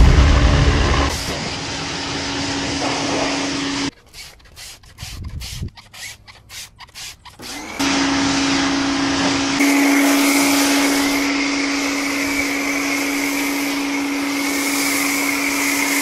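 Pressure washer running with water spraying from the wand: a steady motor-pump hum under a hiss. It stops about four seconds in and starts again nearly four seconds later. A high whistle joins the spray about ten seconds in.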